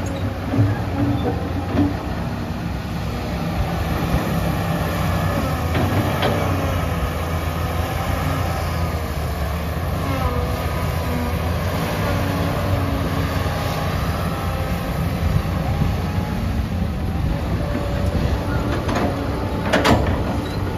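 Komatsu PC150-5 hydraulic excavator working: its diesel engine runs steadily under load while the hydraulic whine rises and falls as the arm and bucket move. A sharp knock comes about a third of the way in and a couple more near the end.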